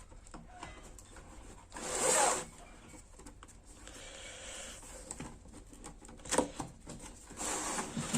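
A product box being opened by hand: a short scraping rip about two seconds in, then faint rustling and a few sharp clicks and knocks as the flaps and packaging are handled.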